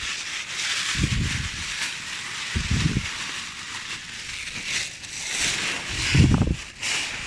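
Plastic bin bags and crisp packets rustling and crinkling as they are handled, with a few dull thumps.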